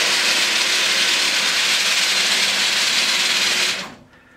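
Steady, loud machine noise with a hissing, whirring character that cuts off sharply near the end.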